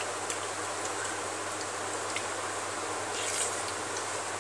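A hand mixing rice on a steel plate and eating, heard as faint soft clicks, a small cluster about three seconds in, over a steady hiss and low hum.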